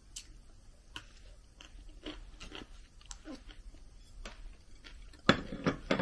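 A person chewing food with the mouth close to the microphone, with light clicks. About five seconds in come a few louder clatters of chopsticks on a plate.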